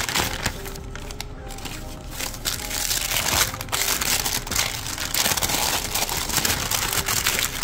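Printed tissue paper being unfolded and crumpled by hand, a continuous crackly rustling that gets louder about halfway through.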